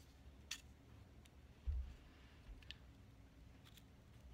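Faint scattered clicks of a cigar cutter being handled and lined up on a cigar's cap, with one low thump about a second and a half in.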